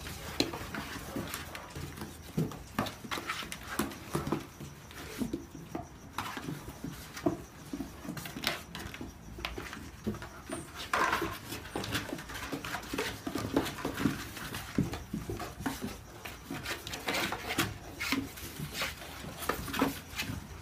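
Whippet puppies scrabbling in and against a cardboard box: irregular knocks, scrapes and rustles of paws and claws on cardboard and brick. An occasional short puppy vocalization, one about halfway through.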